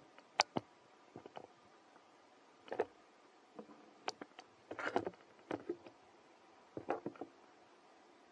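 Faint, wet clicks and smacks of a baby macaque suckling at its mother's nipple. They come in short clusters about every couple of seconds.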